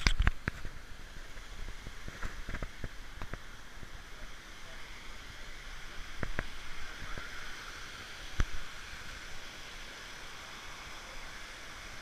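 Mountain stream rushing steadily over rocks. Scattered sharp knocks and bumps cut through it; the loudest come right at the start and about eight seconds in.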